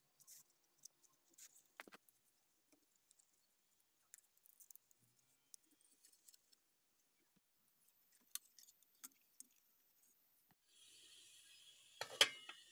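Faint rustling and light taps as banana-leaf parcels are folded and set into a perforated metal steamer tray. Near the end a steady hiss comes in, and there is one sharp knock.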